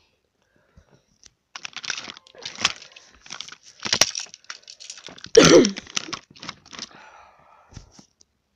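Toy trains and plastic track being handled: an irregular run of small clicks and clatters, with one louder knock about five seconds in.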